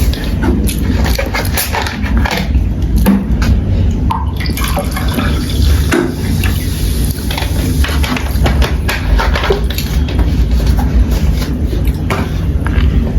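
Cola being drunk in gulps close to the microphone: liquid sloshing and swallowing sounds with many small irregular clicks.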